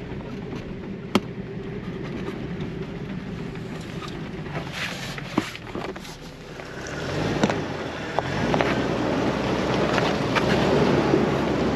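Jeep Wrangler TJ engine running at low speed on a rough mountain trail, with tyres crunching over rock and gravel and scattered sharp clicks and knocks. The noise grows louder past the middle.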